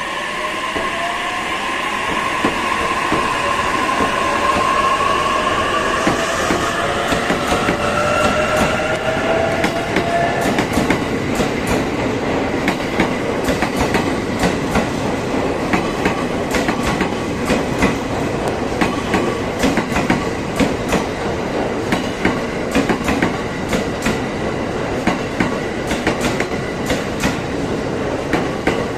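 JR East E231 series 1000 and E233 series 3000 electric multiple unit pulling away from a standstill. For the first ten seconds or so a rising electric whine comes from the traction motors as it accelerates. Then the wheels clack over rail joints and points, the clacks coming more often as it gathers speed.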